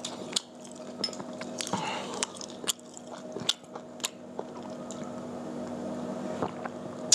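Mouth sounds of two people sipping and swallowing drinks from glasses, with scattered small clicks, over a steady low hum.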